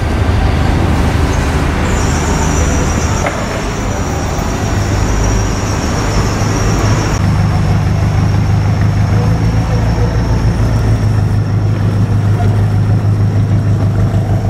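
Steady low engine rumble that grows heavier about seven seconds in, with a thin constant whine above it.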